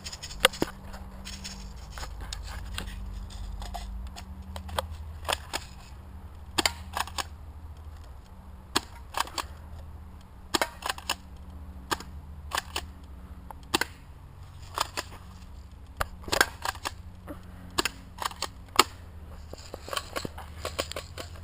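Airsoft Mossberg M590 shotgun being pumped and fired again and again, giving sharp snapping clicks about once a second, often two close together.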